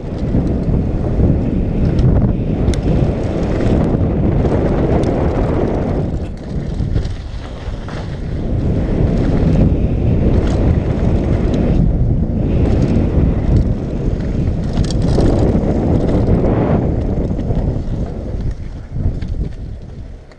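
Wind rushing over a helmet-mounted action camera's microphone as a mountain bike rolls fast down a dirt trail, with tyre noise on the dirt and a few sharp clicks in the first few seconds.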